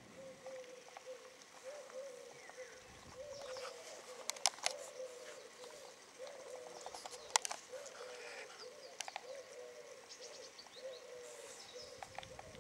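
Birds calling: a low cooing note repeated about twice a second throughout, with brief high chirps over it. Two sharp clicks stand out, about four and a half and seven and a half seconds in.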